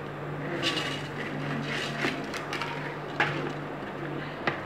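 Soaked raw rice poured from a plastic bowl into a large aluminium pot, the wet grains sliding and rustling onto the roasted ingredients for a couple of seconds. Several small clicks and knocks follow, and a sharper knock comes about three seconds in as the bowl is set upside down on the pot.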